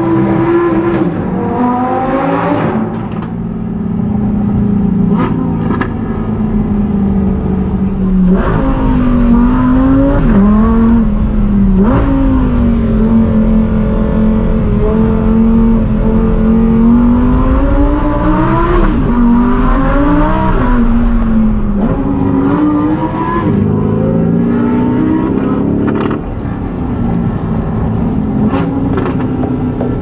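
Lamborghini Huracán STO's naturally aspirated V10 engine running loud, its pitch climbing and dropping repeatedly through the revs and gears, with a steady stretch in the middle and a few sharp cracks.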